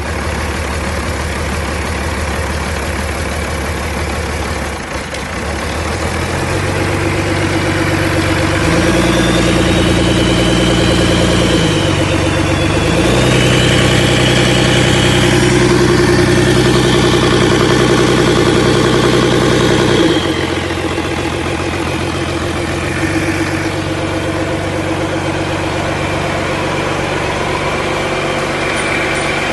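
2011 Cummins C8.3 inline-six turbo-diesel engine running: idling, then revved up from about five seconds in and held at raised speed with a short dip around twelve seconds. It drops back to idle about twenty seconds in.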